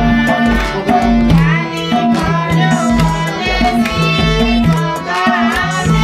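Music with a steady drum beat under a melody, played loud enough for dancing.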